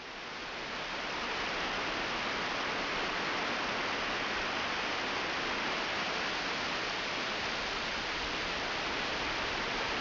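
Mountain river rushing over rocks in rapids: a steady, even roar of water, swelling up over the first second or so.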